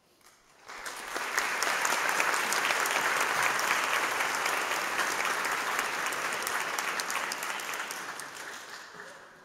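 Audience applauding. It swells up in about the first second, holds steady and dies away near the end.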